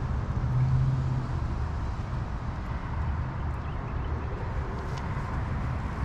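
Steady low engine rumble, with a low hum that swells from about half a second in and fades after about a second.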